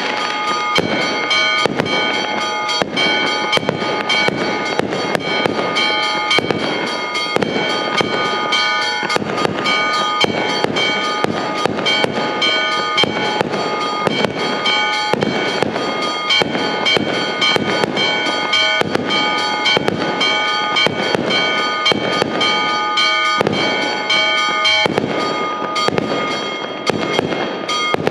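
An aerial fireworks display going off in a rapid, continuous run of bangs.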